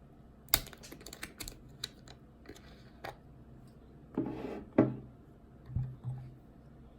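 A run of light clicks and knocks from small hard objects being handled, with a louder clatter about four seconds in and two dull thumps near the end.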